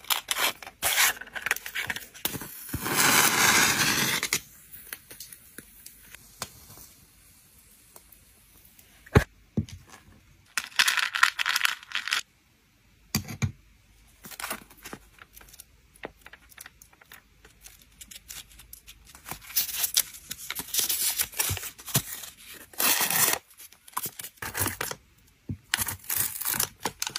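A wooden match struck on its matchbox about two and a half seconds in, flaring for a second or two, then one sharp click and scattered handling noises: taps, scrapes and the rustle of a paper packing pouch and a plastic sleeve near the end.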